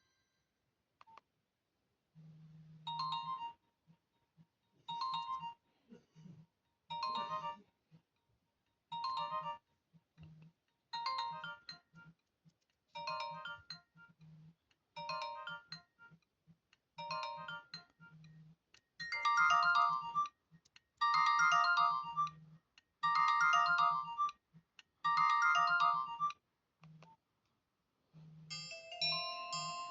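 A Nokia 106 mobile phone's speaker plays a stock ringtone: a short beeping melody repeats about every two seconds and gets clearly louder about two-thirds of the way through. A low buzz comes and goes under it, and a different, busier ringtone starts right at the end.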